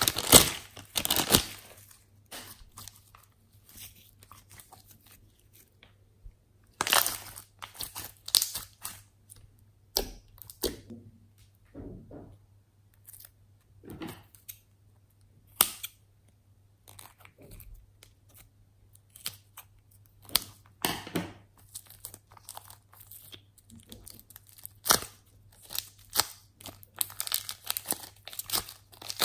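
Clear plastic piping bag crinkling as it is handled and squeezed, in scattered short bursts with quiet gaps between, loudest in the first second or so. A faint steady low hum runs underneath.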